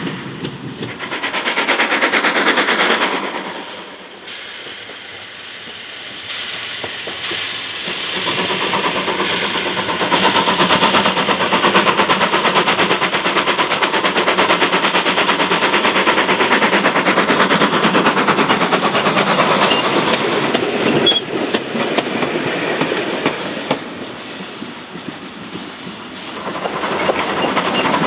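A train fades away in the first few seconds. Then the LB&SCR A1X 'Terrier' 0-6-0 tank locomotive No.2678 'Knowle' approaches and passes with a rapid chuffing exhaust beat and wheels clattering on the rails, and fades off. Near the end the steam engine comes up loud again, heard close up from the locomotive itself.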